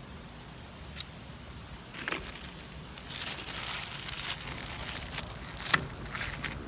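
Plastic packaging crinkling and rustling for a couple of seconds in the middle, with a few sharp clicks before and after.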